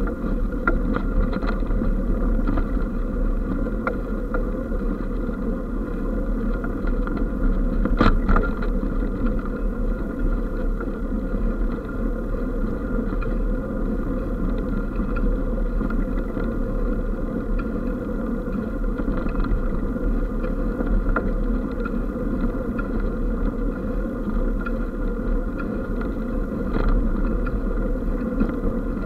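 Hybrid eBike riding along a gravel-surfaced towpath: a steady rumble of tyres on the gravel, with scattered ticks and rattles from the bike and one sharper knock about eight seconds in.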